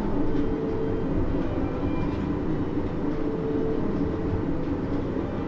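Hitachi-built Series 10 (Type-X) monorail car with IGBT-VVVF traction control running between stations, heard from inside the car: a steady rumble with a faint tone near 500 Hz that comes and goes.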